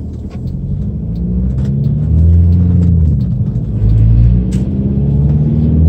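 Cabin sound of an Audi allroad's swapped-in 2.0 TDI four-cylinder diesel engine pulling the car along: a low drone that rises and falls in pitch, louder from about two seconds in. Quite a bit of vibration comes through the body, which the owner puts down to a single-mass flywheel.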